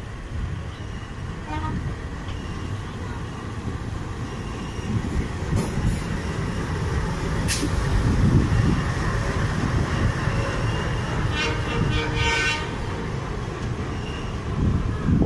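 Passenger train running, a steady low rumble of wheels on rails. A train horn sounds briefly about eleven to twelve seconds in.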